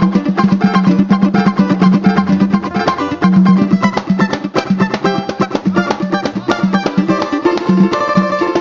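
Samba group playing: plucked strings over a busy, steady percussion rhythm.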